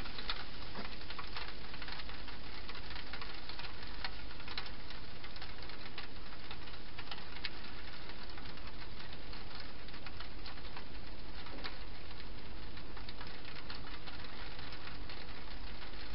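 Faint, scattered clicks and crackles of a hedgehog eating dry food inside a plastic-box feeding station, over a steady hiss and low hum.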